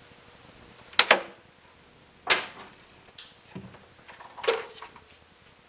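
Three short, sharp clicks or snaps, the first a quick double, from a hand tool and wiring being worked in a car's interior.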